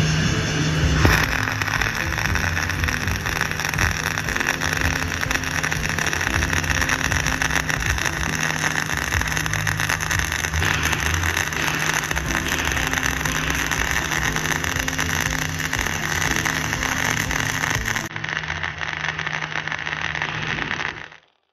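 Dual-shield flux-cored arc welding with .045 wire on a vertical-up joint: a steady crackling hiss from the arc as the bead is run. It cuts off abruptly near the end as the arc is broken.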